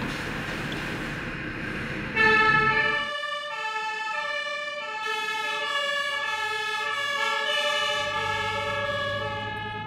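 Fire engines pulling out with their two-tone sirens, which come on about two seconds in and step back and forth between a high and a low note, more than one siren sounding at once, out of step. Truck engine noise runs underneath, with a low engine rumble near the end.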